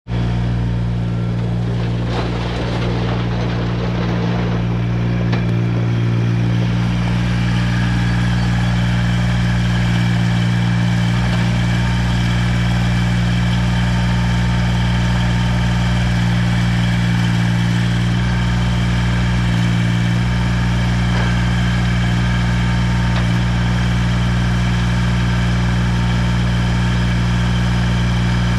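Kubota BX2670 sub-compact tractor's three-cylinder diesel engine running steadily, with a constant low hum.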